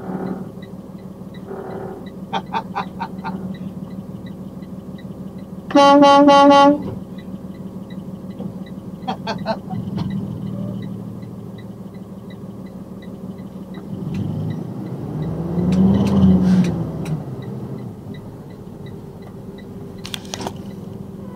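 Truck air horn sounding one steady blast of about a second, over the constant drone of the box truck's engine heard from the cab. A louder rumble swells and fades later on.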